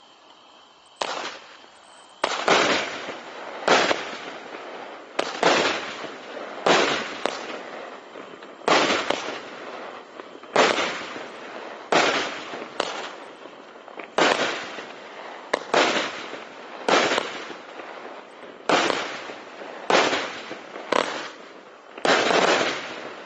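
Brothers Pyrotechnics Divine Night barrage cake firing shot after shot, starting about a second in, roughly one every second and a half. Each shot is a sharp bang that trails off.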